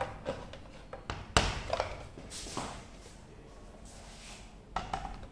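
Handling noise from a Makita DPB183 cordless band saw with its motor off: scattered clicks and knocks of its plastic and metal parts as it is adjusted and picked up, the sharpest about a second and a half in and a few more near the end, with some rustling between.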